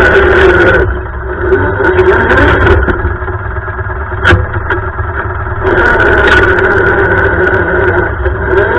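Off-road lawn tractor's small engine running as it is driven over rough woodland ground. Its note falls back about a second in and picks up again near six seconds, with a brief rise in pitch near the end, and one sharp knock about four seconds in.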